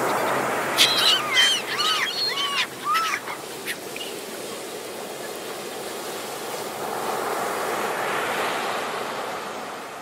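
Ocean surf: waves breaking and washing up the shore in a steady rush that swells a little late on. A string of short, arching bird calls sounds over it in the first few seconds, and music tones fade out about a second in.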